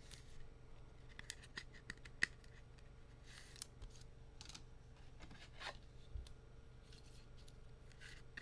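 Trading cards and packs being handled: a few sharp clicks at irregular intervals, the loudest a little over two seconds in, and several short soft swishes.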